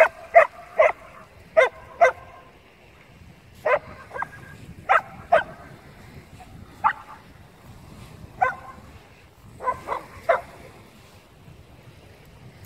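A dog barking: about a dozen short, sharp barks, singly and in quick pairs, with pauses between the groups.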